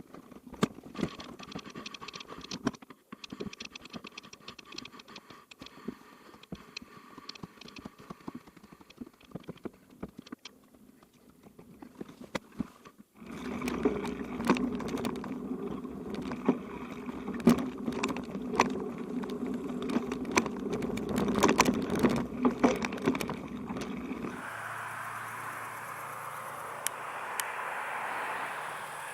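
Bicycle rattling and clicking as it is ridden over a rough unpaved road. It gets louder with a low rumble about halfway through, then gives way to a steady hiss for the last few seconds.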